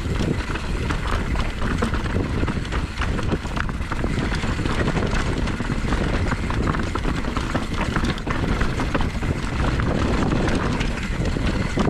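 Mountain bike descending a rough trail: tyres running over dirt, roots and stones, with a continuous rattle of many small knocks from the bike, over a low wind rumble on the microphone.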